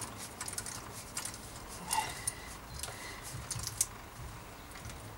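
Scattered small clicks and light metallic rattles of hands working on bicycle handlebars while a cork grip is pushed on by the brake lever. The sharpest clicks come about two seconds in and just before four seconds.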